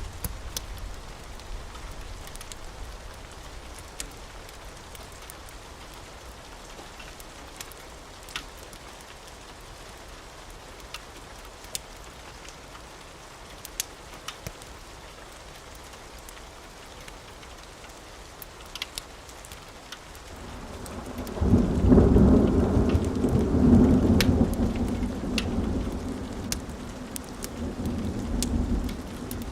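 Steady rain with scattered sharp ticks. About two-thirds of the way through, a loud rolling thunder rumble breaks in, swells twice and fades, then rises again briefly near the end.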